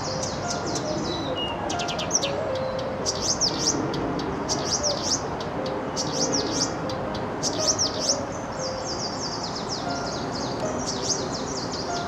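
A reed warbler singing a continuous, varied song: repeated sharp notes that swoop down and back up, run together with fast chattering passages, over a steady low background noise.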